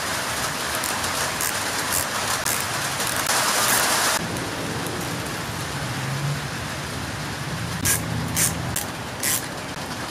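A steady hiss, louder for the first four seconds, then three short light clicks near the end as the screwdriver and loose brass butterfly valve discs are handled on the throttle body.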